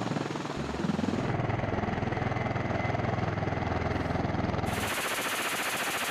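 V-22 Osprey tilt-rotor running in helicopter mode: the proprotors' fast, even chop over the turbine engines. About three-quarters of the way through the low chop drops away and a brighter, hissing rush takes over.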